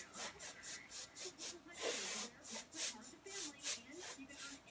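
Short puffs of breath blown at close range across wet alcohol ink, about two or three quick blows a second, each a brief airy hiss.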